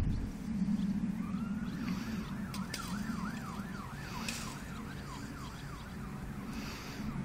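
Emergency vehicle siren in a fast rising-and-falling yelp, starting about a second in and fading out after about four seconds, over a steady low rumble.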